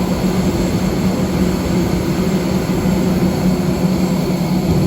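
Steady, loud running noise of a vehicle in motion: an even rushing hiss over a constant low hum.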